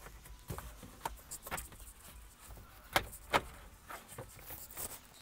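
Plastic dashboard trim panel of a Suzuki DA64V minivan being pulled off by hand: a series of short clicks and knocks from its clips and plastic, the two loudest about three seconds in, less than half a second apart.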